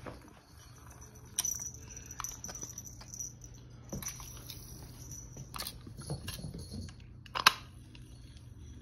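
Scattered clicks, knocks and rustles from a cat tussling with a feathered lure on a telescopic fishing-rod cat toy as the rod is swung and cast; the sharpest knock comes about seven and a half seconds in.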